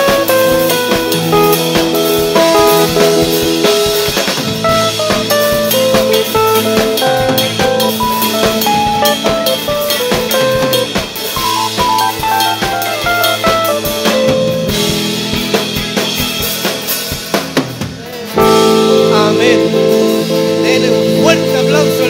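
Live worship band playing an instrumental passage with no singing: drum kit, keyboard and guitar, a melody running downward in quick steps over held chords. About 18 seconds in the music briefly thins, then comes back with fuller sustained chords.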